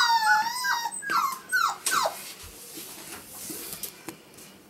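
Five-week-old Pomsky puppy whimpering: a string of short, high whines, each falling in pitch, over the first two seconds. After that it fades to faint scuffling.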